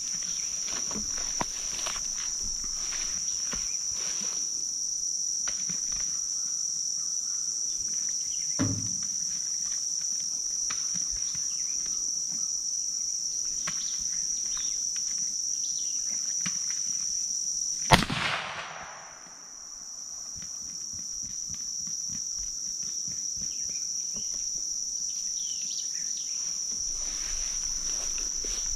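Steady high-pitched insect chorus, with a faint thump about nine seconds in. About eighteen seconds in, a single sharp rifle shot at a feeding boar hog cracks out, after which the level briefly drops before recovering.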